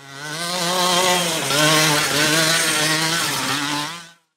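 Large-scale RC monster truck driving through a mud puddle, its motor running with a pitch that steps up and down as the throttle changes, over a hiss of spray. It fades in at the start and fades out just before the end.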